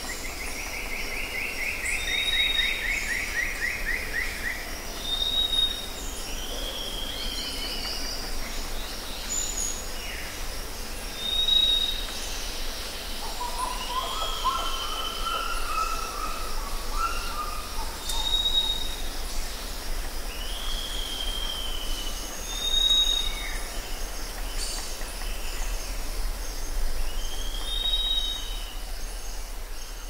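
Several wild birds singing and calling: short clear whistled notes recur every few seconds, a fast buzzy trill sounds in the first few seconds, and a lower warbling phrase comes around the middle, over a faint steady hiss.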